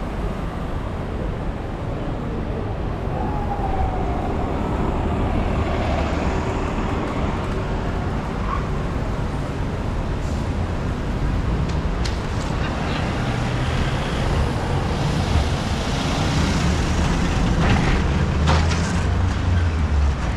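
Traffic on a busy city street: a steady din of vehicles running past, with a low engine rumble that swells in the second half and a few brief clatters near the end.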